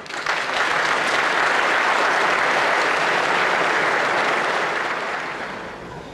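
Audience applauding, starting at once, holding steady, and fading out over the last second or two.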